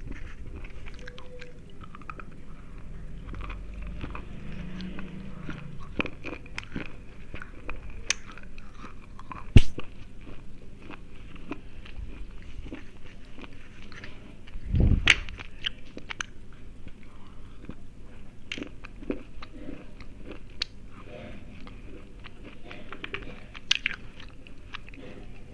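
Slate pencils being bitten and chewed: a run of hard, dry crunches and cracks as the thick pencil sticks break up in the mouth, with two louder snaps, about 9 seconds and 15 seconds in.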